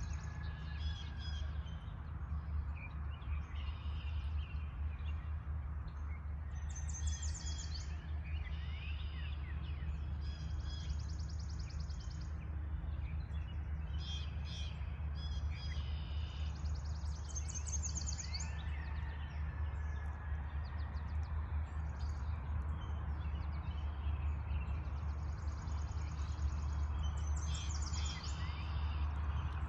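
Several songbirds singing and calling in a spring dawn chorus, with short, repeated high trills and chirps following one another throughout. A steady low rumble runs underneath.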